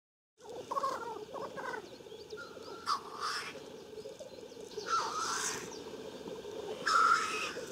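Black grouse cocks at a lek: a continuous bubbling chorus, broken by three louder hissing calls about two seconds apart.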